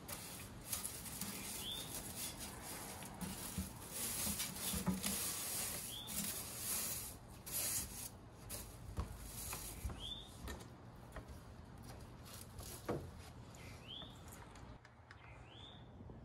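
Straw broom sweeping wet wooden deck boards in brisk scratchy strokes, which die away after about 13 seconds. A bird gives a short high chirp every few seconds.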